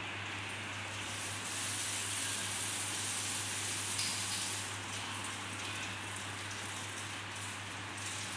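Steady hiss with a constant low hum underneath; the hiss grows brighter and a little louder from about one and a half to four and a half seconds in.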